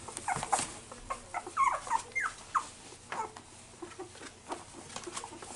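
A litter of 2.5-week-old cockapoo puppies squeaking and whimpering: many short, high squeals, most of them in the first three seconds and fewer after.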